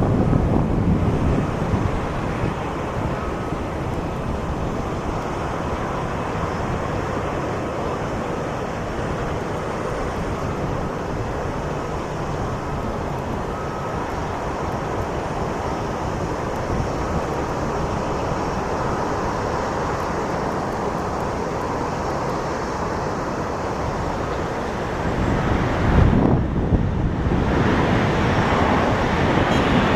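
The CFM56-7B turbofan engines of a Boeing 737-800 landing, heard as a steady jet rush with a faint whine, mixed with wind buffeting the microphone; a stronger gust rumbles on the microphone near the end.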